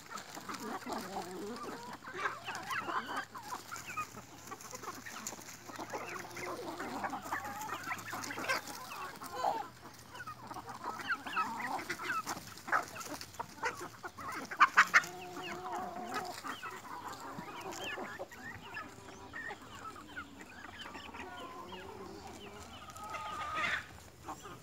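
A large flock of free-range chickens clucking and calling as they crowd round for feed. A few sharp, loud clicks come about halfway through.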